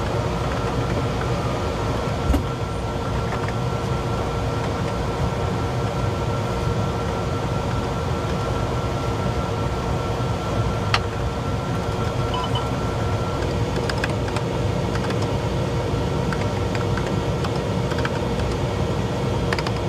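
Steady hum of ventilation and electronic equipment in a small enclosed shelter, with a faint steady whine in it. Scattered keyboard key clicks come in over the last few seconds.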